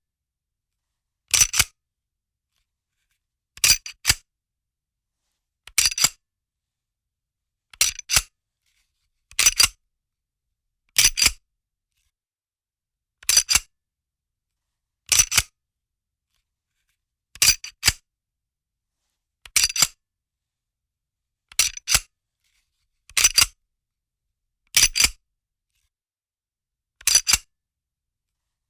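A gun's slide being handled and racked, each time a quick pair of sharp clicks, repeated about fourteen times at intervals of roughly two seconds with silence between.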